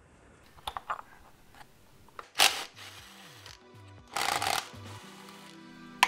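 A cordless drill-driver runs in two short bursts, undoing bolts on a Honda K24 engine's rocker cover, over background music that comes in partway through; a sharp click near the end.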